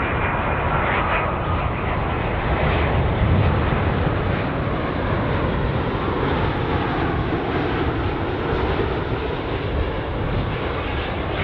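Jet airliner's engines passing low overhead on approach to land, a loud, steady jet noise.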